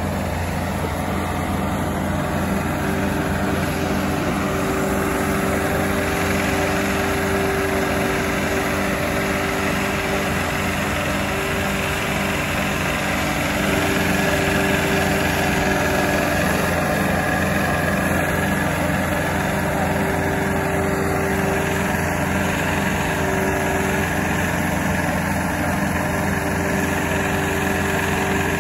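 Engine of a small remote-controlled mobile home tug running steadily as it moves a doublewide section, with a higher tone that comes and goes over the engine note. The engine gets a little louder about halfway through.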